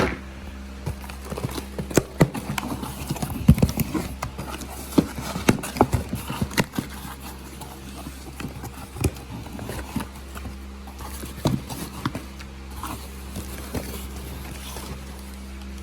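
A mailed package being cut open with a knife and unpacked: irregular clicks, knocks and scrapes of the packaging being handled, over a steady low hum.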